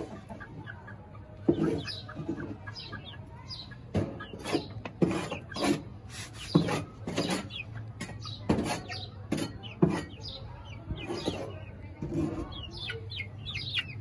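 Young Aseel chickens, about two months old, clucking in short calls every second or so, with a run of high, quick chirps near the end.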